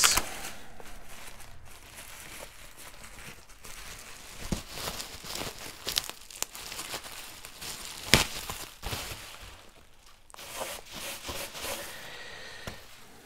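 Bubble wrap rustling and crinkling as it is pulled off an RC plane's foam wings. Irregular crackles run through it, the sharpest about eight seconds in.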